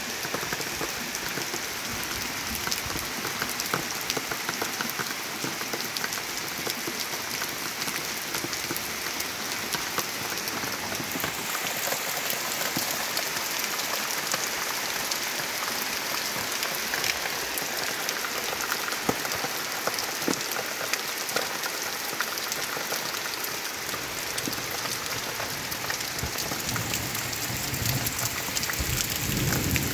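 Steady rain falling, an even hiss dotted with the ticks of individual drops.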